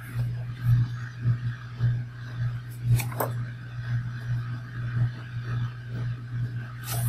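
A pen drawing lines on sketchbook paper, with a couple of short sharp scratches about three seconds in and again near the end, over a steady low hum.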